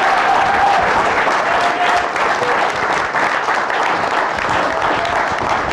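A group of people applauding, with a few voices calling out over the clapping.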